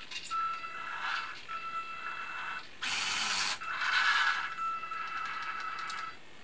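Small electric drive motors and gearing of a Robbe Linde H50 RC model forklift whining in short stop-start runs as it manoeuvres. About three seconds in there is a brief, sharp burst of hiss.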